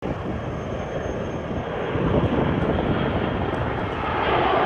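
Jet engines of a B-21 Raider stealth bomber flying low overhead, a dense, steady rumbling roar that grows gradually louder.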